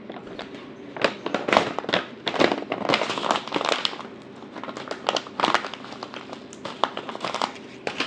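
Plastic bird-food pouch crinkling and rustling as it is handled, in irregular bursts of crackly noise.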